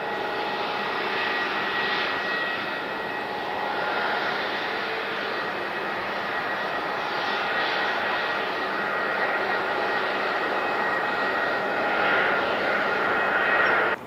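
Jet engines of an Airbus A320-family airliner running at high power during its takeoff roll: a steady rushing noise with high whining tones, growing a little louder near the end.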